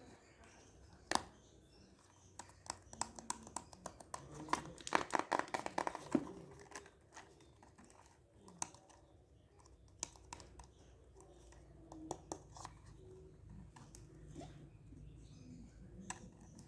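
Small accessories and their plastic packaging being handled: a quick run of clicks, taps and crinkles, densest about four to six seconds in, then scattered taps.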